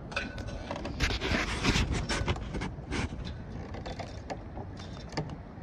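Wind rumbling on the microphone under a run of sharp knocks and clatters, busiest in the first few seconds, with one more sharp knock near the end.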